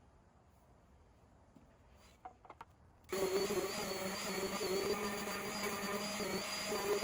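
A few light clicks, then about three seconds in an electric sander switches on abruptly and runs with a steady buzzing whine.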